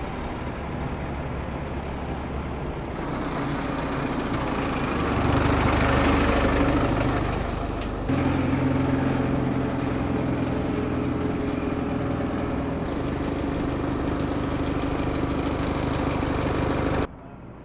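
Diesel engines of large expedition camper trucks idling and running, heard in several clips joined by cuts. The engine note swells about five seconds in, changes abruptly about three, eight and thirteen seconds in, and cuts off just before the end.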